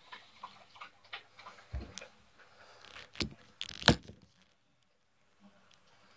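Irregular small clicks and taps, with three louder knocks between about two and four seconds in, then the sound drops away.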